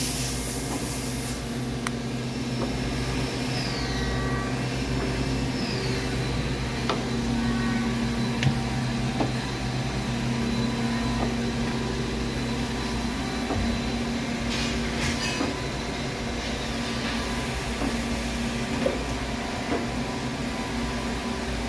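Regent 1632AHD surface grinder running: a steady motor hum with a few even tones and occasional light clicks, with a short hiss right at the start.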